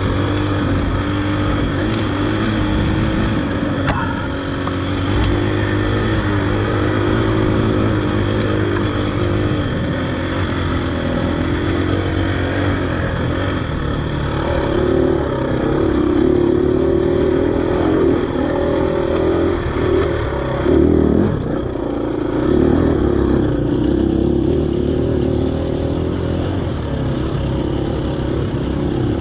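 Dirt bike engine running steadily under way, its pitch rising and falling with the throttle, with a short drop and rev about twenty seconds in.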